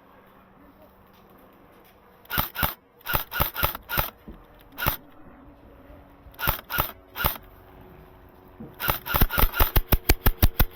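Airsoft guns firing. Scattered single shots and short bursts start about two seconds in, then a rapid run of shots, about seven a second, comes near the end.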